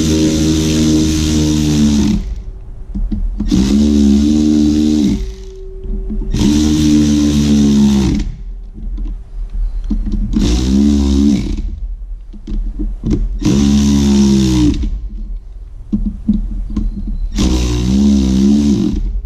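Cordless electric ratchet running in bursts of one to two seconds, about six times, its motor buzzing with a pitch that wavers as it spins a bolt on the fuel pump.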